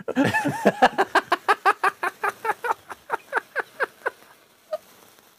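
A man laughing hard: a long run of quick pitched 'ha' pulses, about five a second, that fades away after about four seconds.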